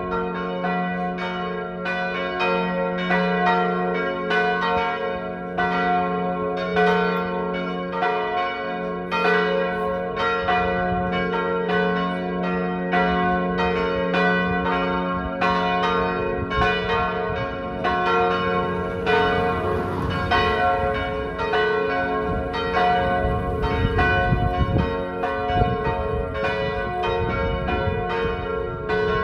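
Church tower bells tuned to G-flat, B-flat and D-flat swinging together in a full peal, their strokes following one another in a steady, overlapping rhythm over a sustained ringing hum.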